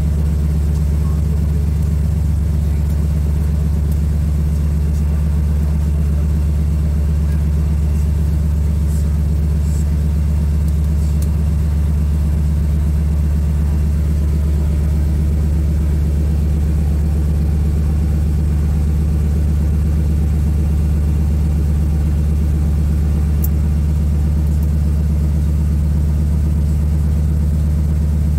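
Light seaplane's engine and propeller running at steady power as it taxis on the water: a constant low drone heard from inside the cabin.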